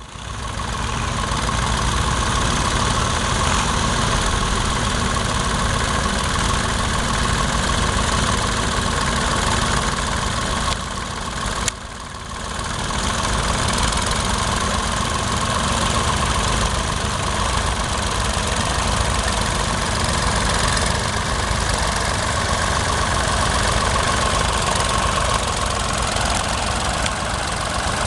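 Vintage tractor engine running steadily while ploughing. About twelve seconds in, the sound dips briefly with a sharp click, then carries on as before.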